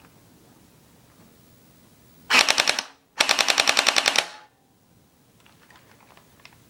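Airsoft gun firing on full auto: a short burst of about half a second, then, after a brief pause, a longer burst of about a second, each a fast even run of sharp shots.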